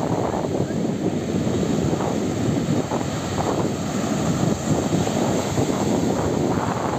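Rough sea surf breaking and washing up a sandy shore, with strong wind buffeting the microphone. The result is a steady, rumbling noise.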